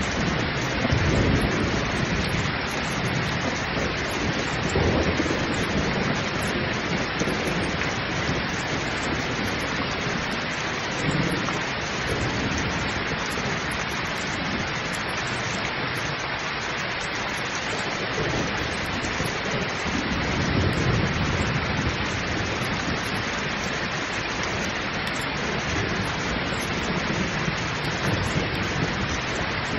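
Heavy rain pouring down with a steady hiss, and low thunder rumbling several times, the longest rumble about two-thirds of the way through.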